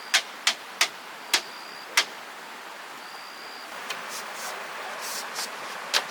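Five sharp knocks in quick, uneven succession over the first two seconds, then softer rustling and scraping and one more knock near the end. A thin, high steady tone comes and goes in the background.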